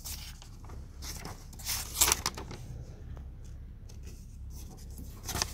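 Paper rustling as the pages of a bound technical manual are turned and a fold-out sheet is opened, with crisp rustles about two seconds in and again near the end.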